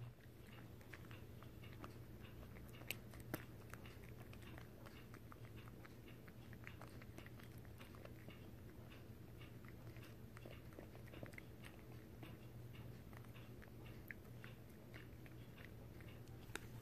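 Two cats crunching and chewing small dried beef liver treat cubes: faint, irregular little crunches throughout, with two sharper crunches about three seconds in.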